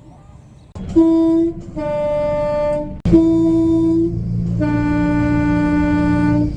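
A British train's two-tone horn sounded twice, each time a short high note followed by a longer, lower note. A low rumble runs under the second pair.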